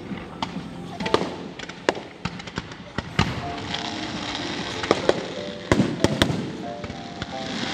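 Fireworks display: irregular sharp bangs from bursting shells, with a cluster of bangs close together near the end. From about halfway through, a crackling hiss from fountains and crackle effects grows steadily louder.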